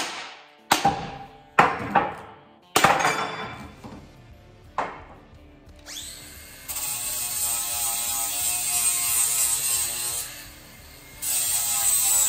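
Several sharp metal knocks with a short ring, as the steel axe head is struck to seat it on the wooden handle. About six seconds in, an M18 cordless angle grinder starts up and sands the wooden handle with a steady whir, easing off for a moment near the end and then rising again.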